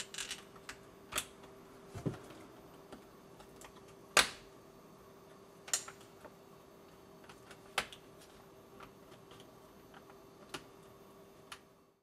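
Scattered sharp clicks and taps of DDR3 laptop memory modules being handled and pressed into the memory slots of a 2009 13-inch MacBook Pro, the loudest click about four seconds in. A faint steady hum runs underneath.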